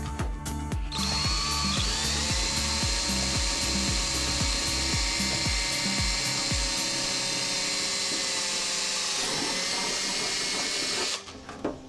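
Electric drill running steadily for about ten seconds while drilling a seat-mounting hole through a go-kart seat. It starts about a second in and stops suddenly near the end. Background music with a low beat plays under the first half.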